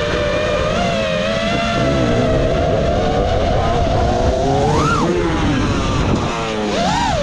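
FPV freestyle quadcopter's Ethix Stout 2306 1750 kv brushless motors whining under changing throttle, the pitch wavering and then rising and falling sharply twice near the end as the throttle is punched and cut, over a low rumble.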